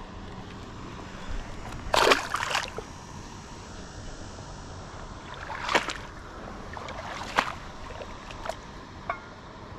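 A largemouth bass let go into shallow water with a brief splash about two seconds in, followed by a couple of shorter sloshing sounds.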